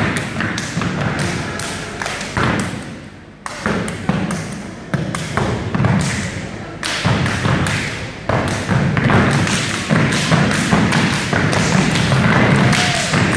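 A group of dancers stepping in unison, stomping on the wooden gym floor and clapping and slapping their bodies: a run of heavy, loud thuds and sharp claps in a quick, uneven rhythm.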